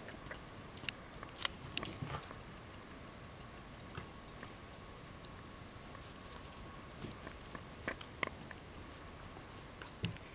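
West Highland White Terrier puppies play-biting and scuffling: scattered small clicks and snaps of mouthing teeth and scrabbling paws, with sharper clicks about a second and a half in and around eight seconds, and a low knock near the end.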